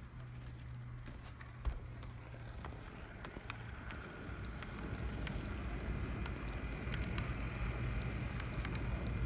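HO-scale brass model of an SBB Ce6/8 II 'Crocodile' electric locomotive running on its track: a steady motor hum and gear whine that grow louder as it draws near, with small clicks from the wheels on the rails. A single sharp knock about two seconds in.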